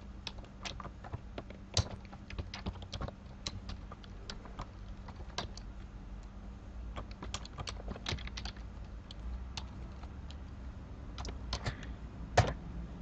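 Computer keyboard typing: irregular keystrokes with short pauses, one key struck much harder near the end, over a faint steady hum.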